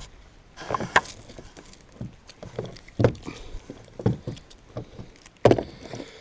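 Gear being handled on a kayak: irregular knocks, clunks and scrapes, with sharp knocks about a second in, around three and four seconds in, and another near five and a half seconds.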